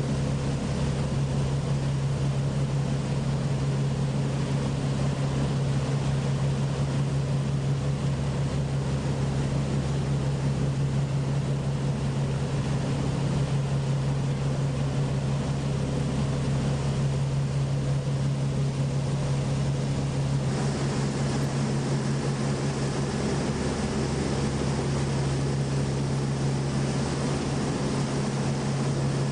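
Motorboat engine running at a steady pitch, a constant low drone under a hiss of wind and water that brightens about two-thirds of the way through.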